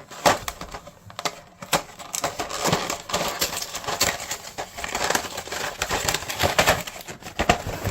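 Packaging being handled and opened: irregular crinkling, rustling and crackling of wrapping and packs.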